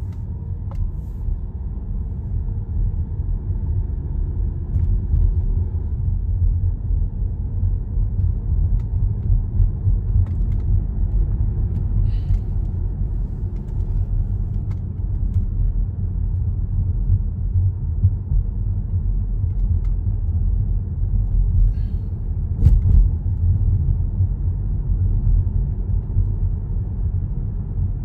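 Car driving along a street, heard from inside the cabin: a steady low rumble of road and engine noise, with a faint click about two thirds of the way through.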